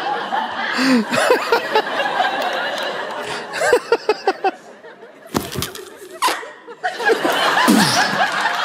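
Audience and cast laughing and giggling. About two-thirds of the way through, the laughter dips for a couple of sharp bangs voiced into a microphone as gunshots, then picks up again.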